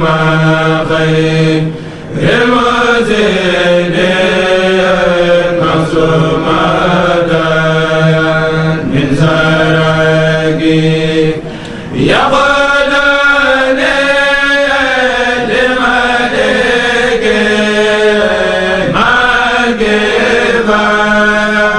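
A kourel, a group of men, chanting Mouride khassaid verses in unison, with long drawn-out notes. The chant breaks off briefly for a breath after about two seconds and again a little past the middle.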